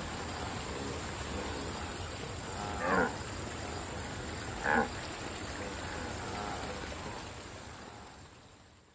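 Two short calls from the cartoon wildebeest, about a second and a half apart, over a steady outdoor background hiss. The background fades away near the end.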